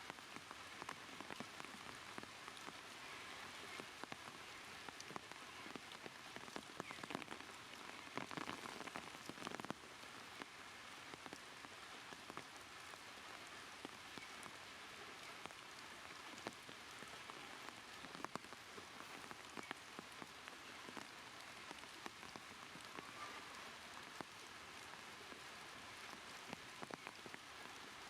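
Rain falling, a faint steady hiss with many small scattered ticks.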